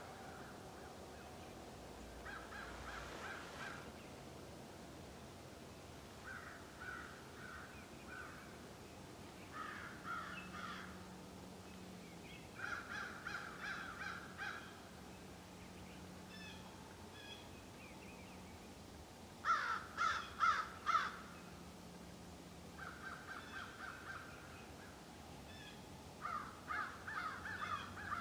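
Crows cawing in short runs of quick harsh calls, some faint and some nearer, the loudest a run of four about two-thirds of the way through.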